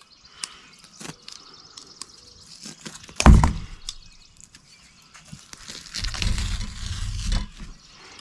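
Handling noises as the skin is pulled off a bullhead catfish with pliers: scattered small clicks, one sharp knock about three seconds in, and a longer rough rustling noise near the end as the skin comes away.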